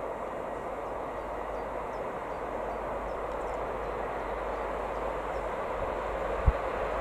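Freight train of tank wagons hauled by a pair of class 1800 electric locomotives, approaching from a distance: a steady rumble that slowly grows louder. A single low thump about six and a half seconds in.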